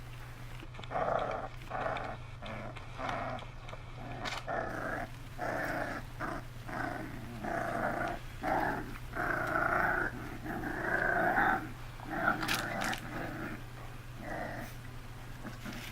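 Five-week-old boxer puppies growling at play, a string of short growls coming one or two a second over a steady low hum.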